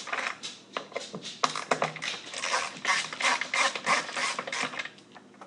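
Phillips screwdriver backing screws out of a plastic vacuum carpet nozzle housing: a run of irregular clicks and scratchy rasps that dies away near the end.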